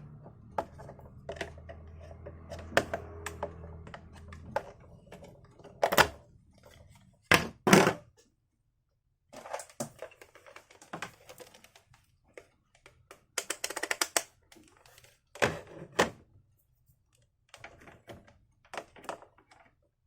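Irregular clicks, taps and knocks of hands working on the plastic housing and parts of a Zojirushi electric hot water boiler, with a few louder knocks. A steady low hum runs under the first few seconds and then stops.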